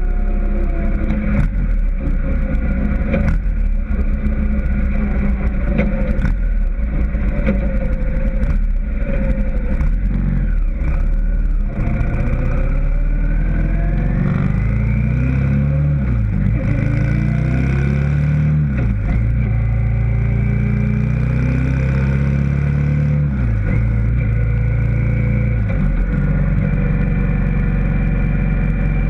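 Vehicle engines running on the move along a road, with an engine's pitch rising and falling as it accelerates and changes gear, most clearly through the middle.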